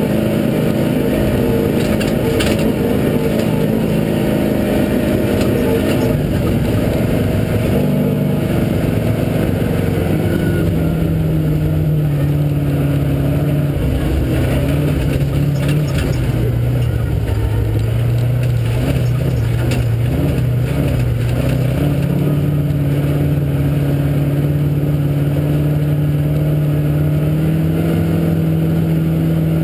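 Off-road vehicle engine running steadily under way over sand, with a constant rumble and wind noise. The engine note steps down and back up a few times as the throttle changes.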